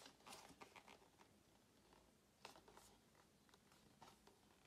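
Near silence: faint scattered clicks and rubbing of hands handling a plastic Honda RB1 intake manifold, with one slightly sharper click about two and a half seconds in.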